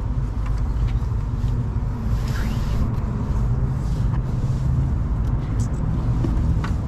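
Steady low vehicle rumble of road and engine noise, with a few faint clicks.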